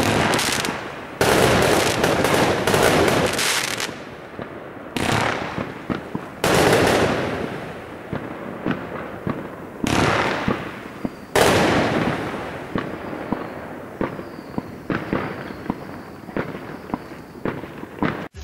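Aerial fireworks shells bursting: several loud bangs every few seconds, each followed by a long crackle of glittering stars. The bursts thin out and the crackle dies away near the end.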